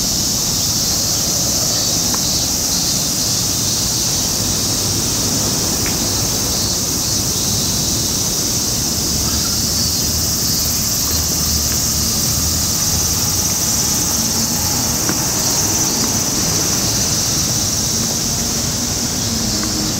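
A steady, high-pitched chorus of cicadas in the trees, over a low background rumble of city traffic. Near the end a low hum rises slightly in pitch.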